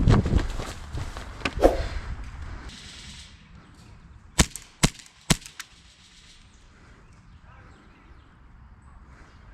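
Airsoft guns firing: a few fainter pops in the first two seconds, then four sharp cracks in quick succession around the middle.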